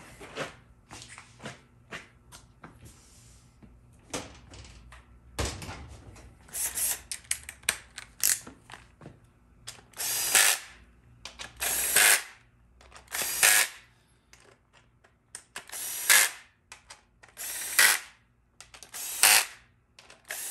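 Cordless 3/8-inch impact wrench running down the oil pump bolts on a transmission case in a string of short hammering bursts, each about half a second to a second long, while bolts are tightened in turn. For the first several seconds there are only light clicks and taps of the tool and bolts being handled.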